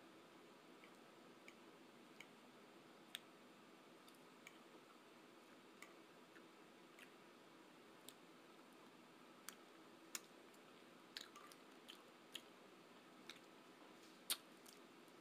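Cutlery clicking and tapping on a plate now and then, over near silence, the loudest click near the end.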